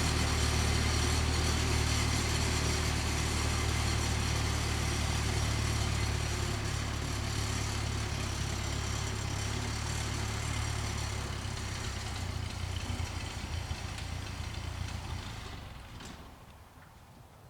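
A motor engine running steadily at low revs, fading away over a few seconds near the end until it can no longer be heard.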